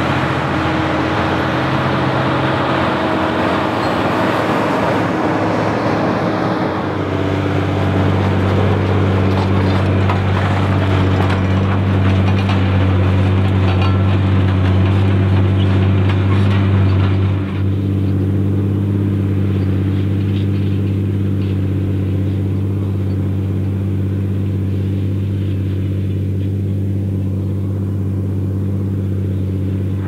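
Diesel tractor engines working hard under ploughing load. About seven seconds in, the sound changes to a steady, deep engine note from a Fendt 512C pulling a plough. About seventeen seconds in, it turns duller as the higher sound falls away and the low engine tones remain.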